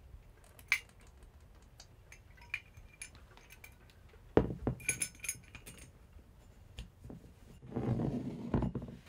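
Glass swing-top bottle clinking: a light tap about a second in, then, about halfway through, a knock and a quick run of clinks from the glass and its metal clasp as the bottle is set down. A longer, soft noise follows near the end.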